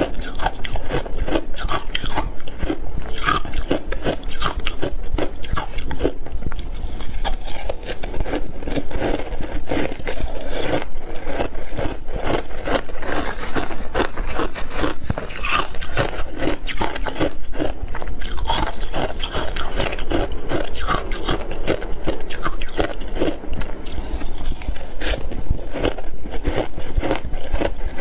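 Close-miked crunching and chewing of big mouthfuls of shaved ice: a dense, unbroken run of crisp crackles, with a spoon scraping through the ice in the bowl.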